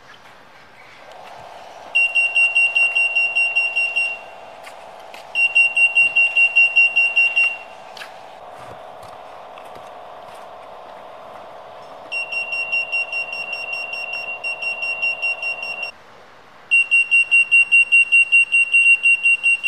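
EAS anti-shoplifting security gate alarm going off in four bursts of rapid high-pitched beeping, about six beeps a second: the alarm that sounds when an active security tag passes the antennas. A steady lower hum runs underneath until shortly before the last burst.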